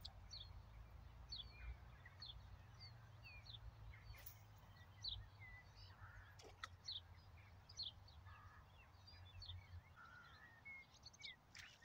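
Faint birdsong outdoors: short high chirping notes repeated about twice a second, over a low steady rumble.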